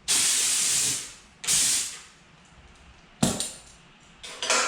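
Compressed air hissing in repeated blasts, two of them about a second long, then a sharp snap about three seconds in and a quick run of shorter blasts near the end.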